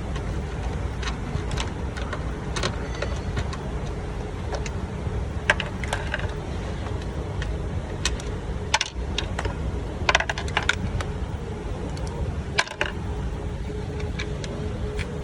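Scattered sharp metallic clicks and clinks of hand tools and parts being handled while a fuse box is taken apart, a few in quick clusters, over a steady low rumble.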